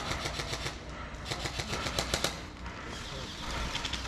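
Airsoft guns firing in rapid bursts, a fast clatter of shots that pauses for about a second midway and picks up again, fainter, near the end.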